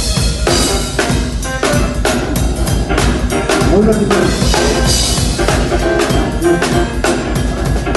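A Yamaha drum kit with a PDP snare and Paiste PST 8 cymbals played in a continuous, busy groove: kick drum, snare and cymbal hits, several strikes a second.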